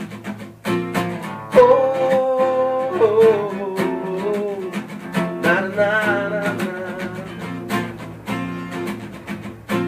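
Band music between sung lines: a gliding lead melody over guitar and a steady drum beat.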